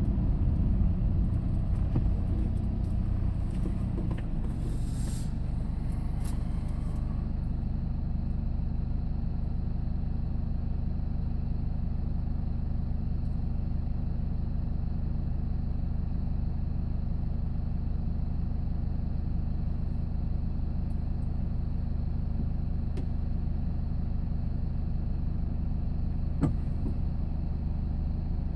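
Vehicle engine and road noise while driving: a steady low drone, somewhat louder and rougher in the first few seconds, then even, with a single sharp click near the end.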